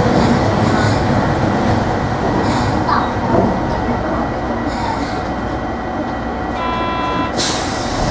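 Hiroshima Electric Railway 3700-series resistance-control tram running, heard from inside the car: a steady rumble of wheels on rail, with the motors barely audible. Near the end a short electronic tone sounds, then a brief hiss of air.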